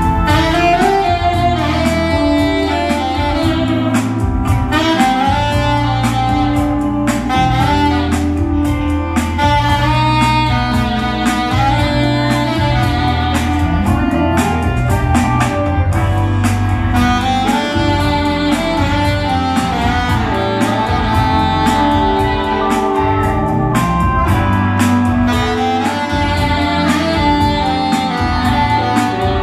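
Live saxophone solo, the melody moving over a steady beat and bass line, with electric guitar accompanying in a jazz-rock ballad.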